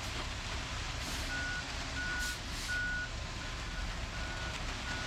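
Backup alarm of a reversing truck beeping: a steady high tone pulsing on and off about one and a half times a second, starting about a second in, over the low running of the truck's engine.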